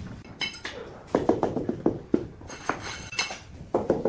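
Rubber mallet tapping a ceramic tile skirting strip to bed it into the mortar on the wall: a run of short, sharp taps with a hard ceramic clink, coming faster near the end.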